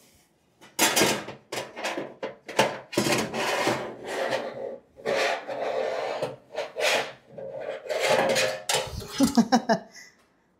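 Sheet-steel filing-cabinet drawer and its metal slide rails scraping, rubbing and knocking against the cabinet body as the drawer is worked in and out, in a string of short scrapes and clunks with a longer scrape in the middle.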